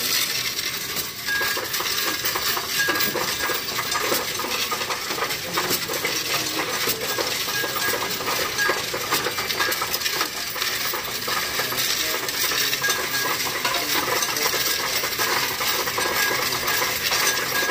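Loose coins poured into a coin-counting machine, rattling and clinking through it in a steady stream.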